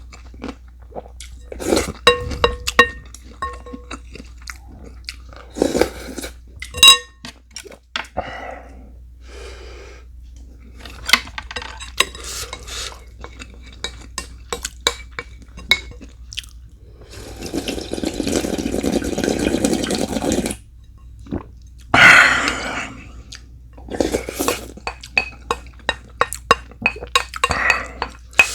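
Metal spoon and chopsticks clinking and scraping against bowls and dishes during a meal, some strikes ringing briefly, with eating noises in between and a few seconds of continuous rustling noise about two thirds of the way in.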